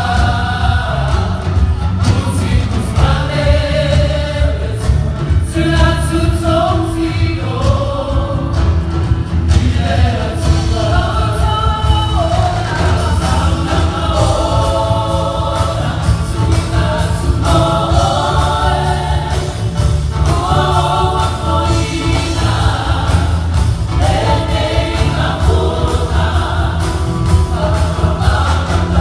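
Mixed choir of men and women singing a Samoan-language gospel song, backed by a live band with a steady low bass line.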